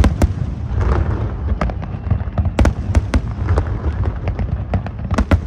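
Fireworks display going off: a rapid, irregular series of sharp bangs and crackles over a continuous low rumble of distant explosions, with the loudest cracks at the start and about two and a half, three and five seconds in.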